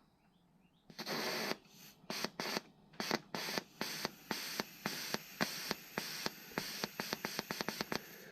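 Short hissing blasts: one longer blast about a second in, then a run of brief blasts that come faster and faster toward the end.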